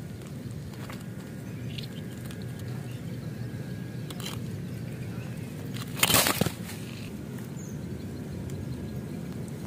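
Small handling noises as a fishing hook and line are worked out of a wallago catfish's mouth, with a few faint clicks and one louder, brief rustle about six seconds in. A steady low background noise runs underneath.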